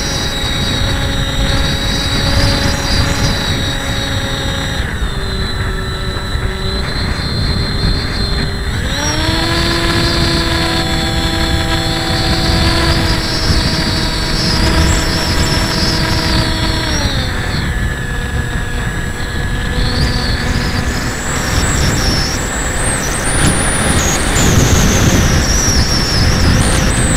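Motor and propeller of a Hobbyking Breeze FPV model plane whining in flight, heard from its onboard camera, with air rushing over the camera. The pitch steps up about nine seconds in as the throttle is opened and drops back about seventeen seconds in.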